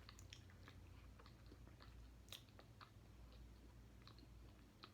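Faint chewing with a few soft, scattered clicks over a low steady hum.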